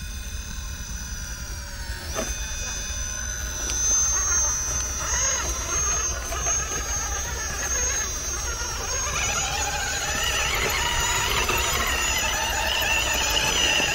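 High-pitched whine of an RC rock crawler's electric motor and gear train working as it crawls up a steep rock face, wavering in pitch with the throttle and getting busier in the second half.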